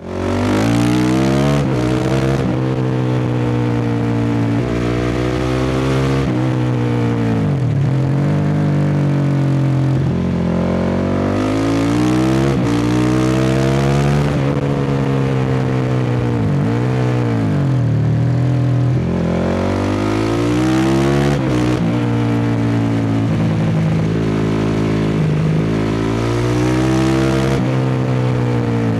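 Honda CRF450R single-cylinder four-stroke through a full Akrapovič dual exhaust, ridden hard: the engine note climbs in pitch again and again and drops sharply at each gear change, with several longer falls as the bike slows.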